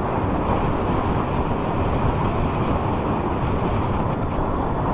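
Wind noise on the microphone of a moving motorcycle, with the Suzuki Bandit 1200's inline-four engine running steadily underneath.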